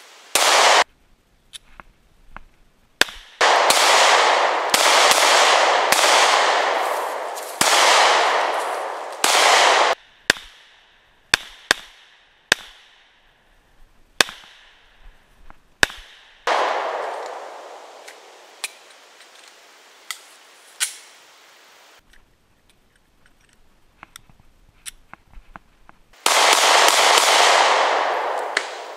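Glock 43 9mm subcompact pistol firing, single shots and quick strings with pauses between, each shot trailing off in a long echo.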